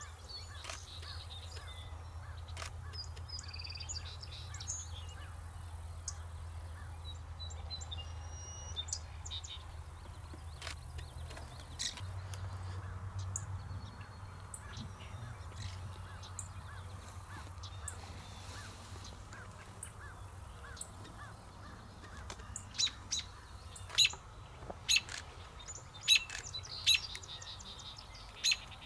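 Scattered bird chirps and whistles over a low steady hum. In the last several seconds an American robin gives a series of loud, sharp alarm calls about once a second, the calls robins make when mobbing a predator such as a young American kestrel.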